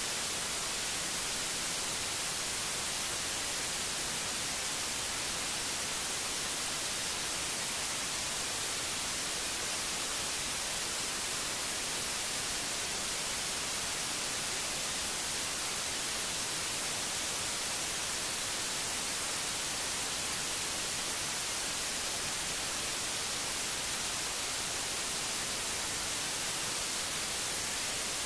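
Steady static hiss like white noise, bright and unchanging in level, with no tones or breaks.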